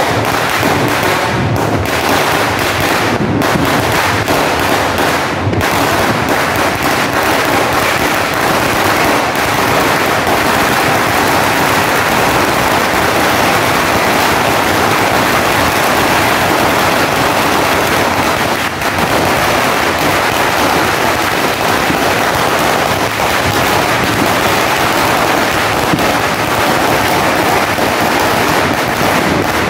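A long 5,000-round firecracker belt (sinturon ni Hudas) going off in one loud, unbroken crackle of rapid small bangs.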